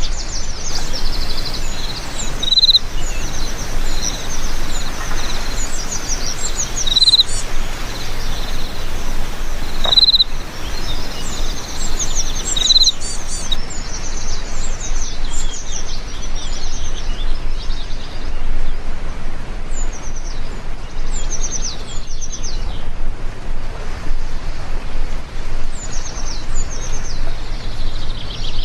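Heavy rain falling as a steady hiss, with birds chirping over it: runs of quick falling chirps, and a few short, clear whistled notes in the first half.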